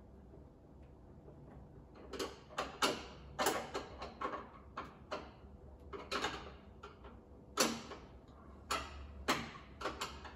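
Phillips screwdriver clicking and scraping in the metal height-adjustment fitting of an IKEA drawer front, as the screw is found by feel and turned. The irregular clicks start about two seconds in and come a dozen or so times.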